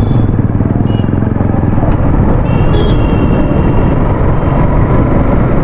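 Motorcycle engine running steadily at cruising speed, with wind and road noise. A brief high beep sounds about halfway through.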